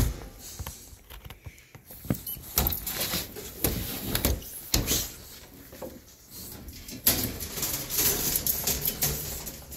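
Irregular knocks and clatters with rustling, growing denser and louder over the last three seconds, as a dog stands up with its paws against a metal crate.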